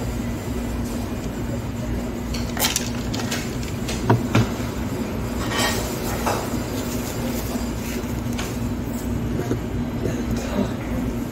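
Steady hum of a busy fast-food restaurant, with a few sharp clinks and knocks of tableware, the loudest a pair about four seconds in.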